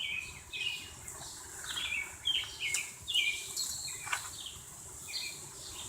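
Small birds chirping in quick, repeated short notes, with a couple of faint clicks around the middle.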